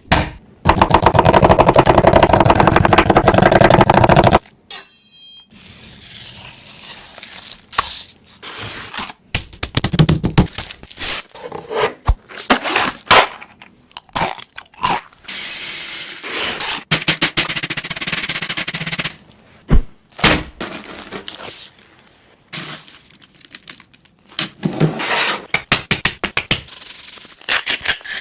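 Food-preparation sounds: a loud, dense rapid rattle for the first four seconds, then a string of separate scrapes, knocks and crunches.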